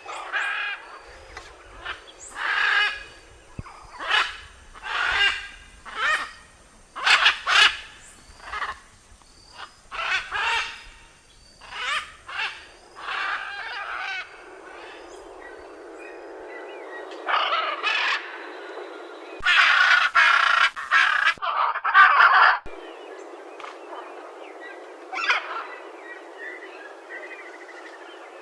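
Macaws squawking: a run of harsh calls about one a second, then after a short lull, longer and louder squawks about two-thirds of the way through.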